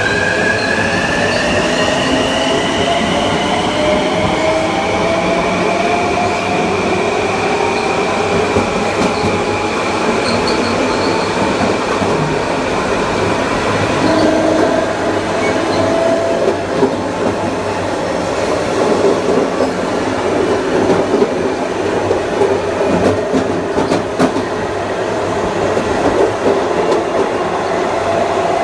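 Mitsubishi (MELCO) IGBT-VVVF inverter and AC traction motors of a Kawasaki M9 electric multiple-unit train, heard on board. The motor whine rises in pitch over the first few seconds as the train gathers speed, then holds steady and cuts out about halfway through, leaving the rumble and clatter of the wheels on the rails.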